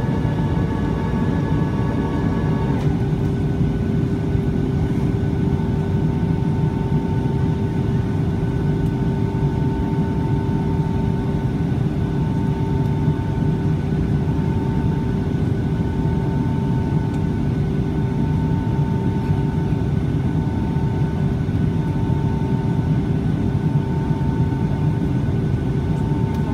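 Steady jet engine and airflow rumble inside the passenger cabin of a Boeing 757-200 in flight, with a constant hum and a higher tone that pulses on and off.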